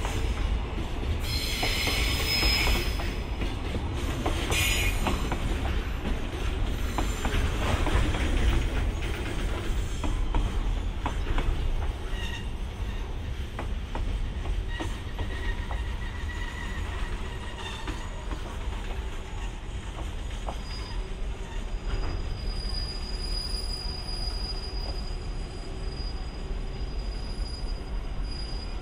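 A freight train hauled by an EH500 electric locomotive rolling past in a steady rumble, with wheels clicking over rail joints. Sharp bursts of high wheel squeal come in the first five seconds, and thinner squealing tones come and go later.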